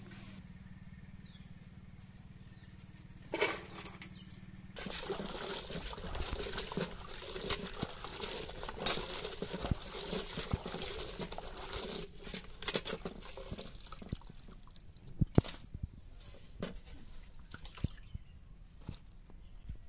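Hands swishing chopped radish and brinjal through water in a metal pot: sloshing and splashing that starts about five seconds in and thins after about twelve seconds to scattered splashes and drips.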